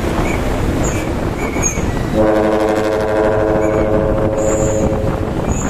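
Dump truck's trumpet air horn blowing one steady multi-tone chord for about three seconds, starting about two seconds in, over the truck's diesel engine running.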